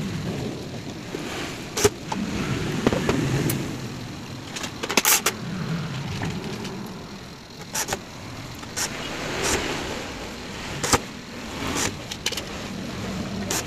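Scattered sharp clicks and knocks, about ten in all, from hands and a screwdriver working on an audio mixer as its case is closed up, over a low background rumble.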